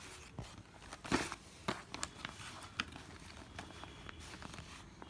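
Irregular crackles and sharp clicks, the loudest about a second in, with smaller ones scattered through.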